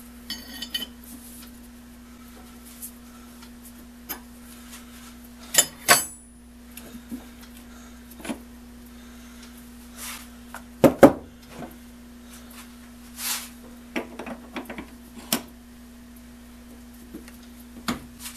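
Steel tools clinking and clanking against a metal lathe's toolpost as a box-end wrench is fitted to and taken off the toolpost nut and the toolpost is reset, in scattered knocks with the loudest clanks about 11 seconds in. A steady low hum runs underneath.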